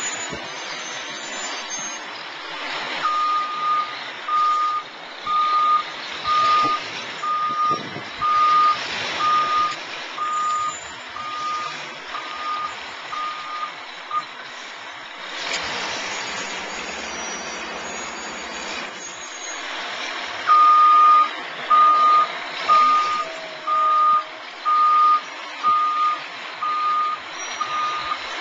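Dump truck's backup alarm beeping steadily at about one beep a second as the truck reverses, in two runs with a pause of about six seconds between. Engine and road noise run underneath, with a brief rush of noise during the pause.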